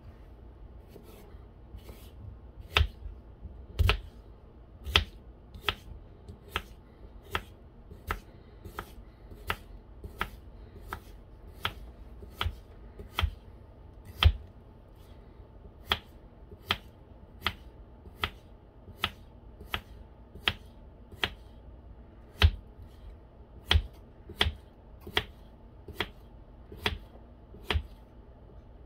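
Deejo 37g linerlock folding knife slicing a giant garden cucumber into thin rounds: each cut ends in a sharp tap of the blade on the cutting board, in a steady rhythm of a little more than one cut a second, a few taps louder than the rest.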